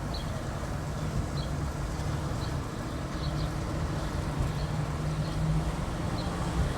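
Steady low rumble of a car engine and tyres while driving slowly, with faint short high chirps now and then.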